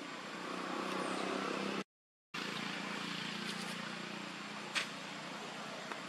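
Steady low hum of a vehicle engine with outdoor background noise. The sound drops out completely for about half a second around two seconds in, and there is a single sharp click near the end.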